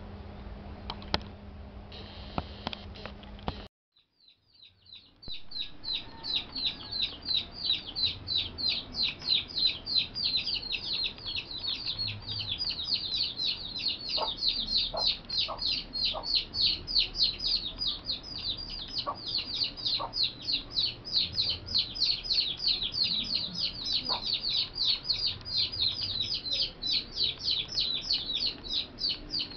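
High, rapid, very regular chirping, several chirps a second, that sets in about five seconds in after a short break in the sound and keeps going, with a few soft clicks in among it. Before the break there is a low steady hum with a few sharp clicks.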